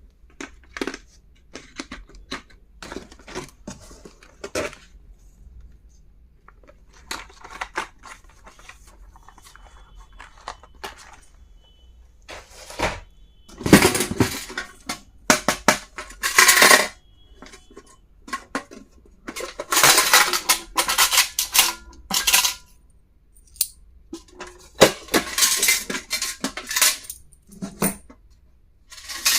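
Small hard stationery items being handled and unpacked: a run of clicks, clinks and rattles, with louder clattering in bunches through the second half.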